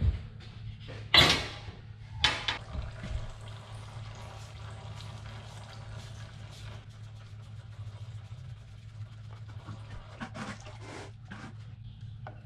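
Clunks and knocks of the oil filter being handled and unscrewed on a John Deere tractor engine, loudest in the first few seconds, with a trickle of draining oil over a steady low hum.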